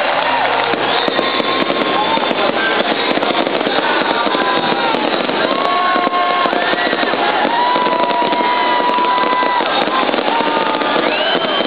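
A dense fireworks barrage: continuous crackling and popping from many shells bursting at once, with a crowd cheering and whooping over it in long held cries.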